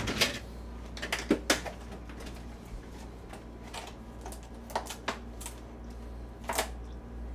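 Refrigerator door pulled open, then a clear plastic bag of food handled and crinkled: a scattering of short, sharp crackles and clicks over a steady low hum.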